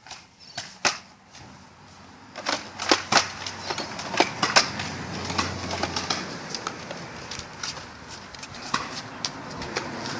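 Nerf blasters firing and foam darts striking: a run of sharp, irregular clicks and snaps, a few at first and coming thick and fast from about two and a half seconds in.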